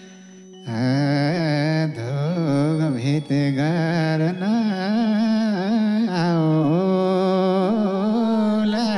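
A man singing a slow, ornamented dohori folk line into a microphone, his pitch wavering and sliding, over a steady held keyboard note. The voice comes in loud about a second in, after a quieter moment.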